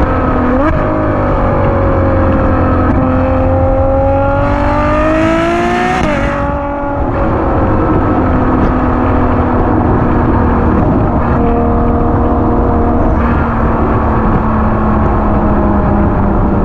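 Ferrari GTC4 Lusso's 6.3-litre V12 engine pulling under acceleration, its pitch rising for a few seconds and then dropping sharply at a twin-clutch upshift about six seconds in, then running steadily at cruise over low road rumble.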